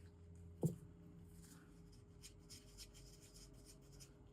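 Faint scraping and rubbing while resin-art supplies are handled, with one short knock about two-thirds of a second in.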